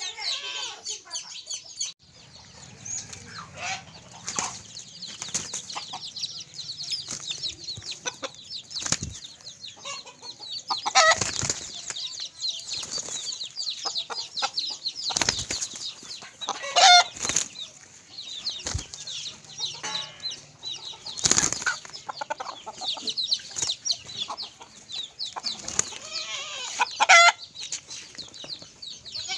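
Chickens fighting: wings flapping and beating in sudden flurries, with a loud harsh squawk three times, over continual high chirping.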